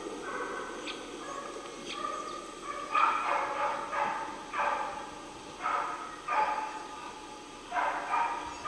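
Running hounds baying: a string of short, pitched yelps starting about three seconds in, roughly eight in all. The baying is the sign that the hounds are on a roe deer's scent.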